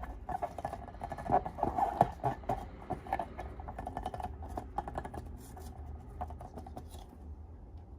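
Slime being worked by hand, with dense wet clicking and crackling that thins out and grows fainter after about five seconds.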